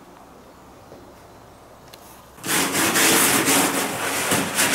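Paintbrush scrubbing watery white paint onto a rough concrete wall in rapid strokes, starting about halfway in.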